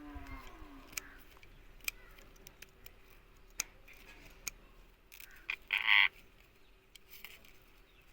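Scissors snipping a parrot's wing feathers in several separate sharp clicks, and a short harsh squawk from the parrot about six seconds in.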